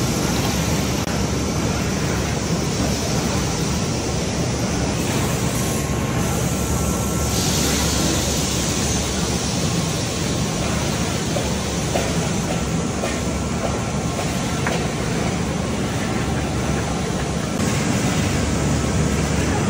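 Steady, loud machinery noise with a few faint clicks.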